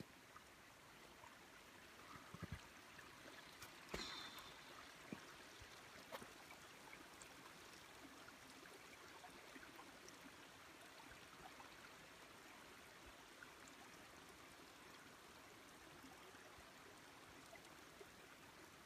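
Faint, steady trickle of a small mountain creek flowing between snowbanks. A few short knocks in the first six seconds, the sharpest about four seconds in.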